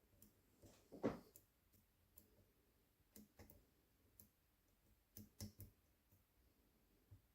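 Faint clicks and taps of a lock pick and tension wrench working the pins of a challenge lock. The loudest tap comes about a second in, and a quick cluster of clicks comes around five seconds.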